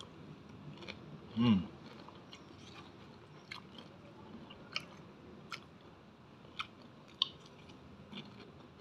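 Someone chewing crispy fried batagor (fish dumplings in fried wonton skin), with scattered sharp crunches and clicks, and a short hum about a second and a half in.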